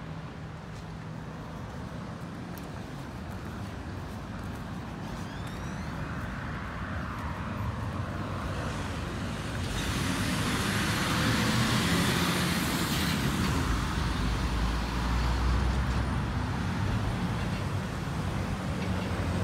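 Road traffic driving past: tyre and engine noise from passing cars, getting louder, peaking about halfway through as a semi-truck with a box trailer goes by with a low engine rumble.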